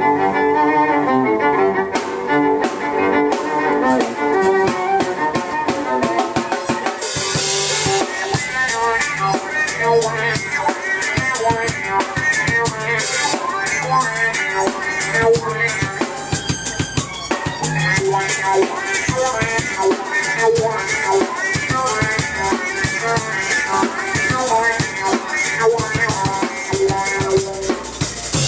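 Live band music: a violin playing a melody, joined about two seconds in by a steady drum-kit beat, with a cymbal crash about seven seconds in.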